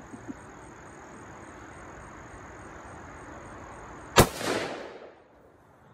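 A single rifle shot about four seconds in, followed by an echo that dies away over about a second. It is a miss: the Tannerite target does not go off.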